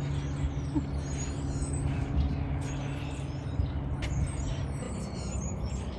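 A vehicle engine running at a steady idle, with birds chirping.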